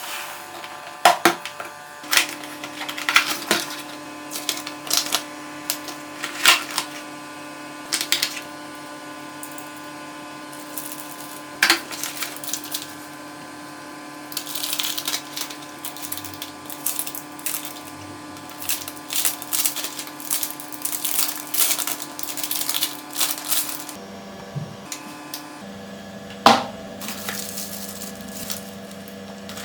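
Keystrokes on a Geek GK68 mechanical keyboard with Kailh Box switches: scattered single clacks, some sharp and loud, and quick runs of typing in the middle. Underneath is a steady background chord that changes pitch a few seconds before the end.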